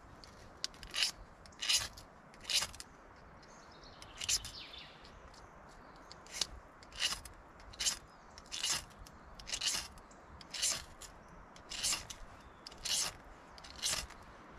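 Repeated short scraping strokes, roughly one a second, with a brief pause near the middle.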